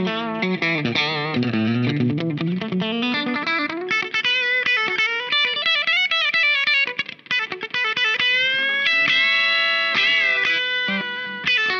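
Fender Aerodyne Special Telecaster played country-style, with quick picked runs and string bends in the second half. The clean tone is heavily squashed by the compressor side of a Caline Key West pedal, a Diamond Compressor-style circuit, which gives the even, sustained country sound.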